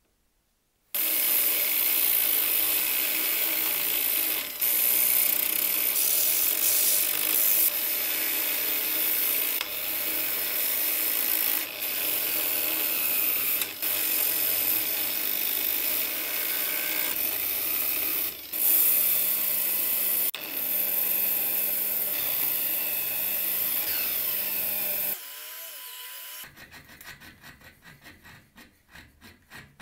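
Electric disc sander running with workpieces pressed against the spinning sanding disc, among them a wooden handle slab: a steady, loud rasping hiss in several cut-together stretches. Near the end, a hacksaw blade scrapes back and forth in quick strokes across a grooved steel piece clamped in a vise.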